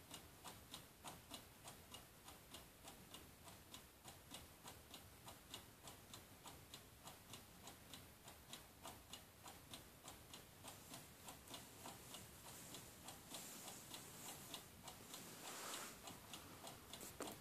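Clock ticking faintly with evenly spaced ticks, and a soft rustle near the end.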